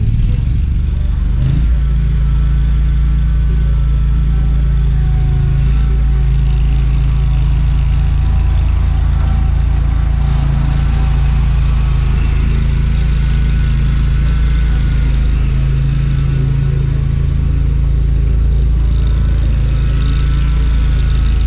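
Scag Liberty zero-turn mower engine running steadily, with a strong low hum.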